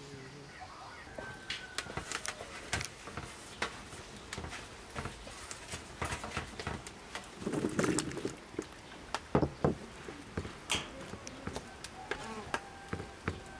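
Clatter of handling a metal baking tray of cut raw potatoes: scattered knocks and clicks, a brief rattling burst a little past halfway as the potato pieces tumble onto the tray, then sharper knocks and soft clicks as hands spread them out.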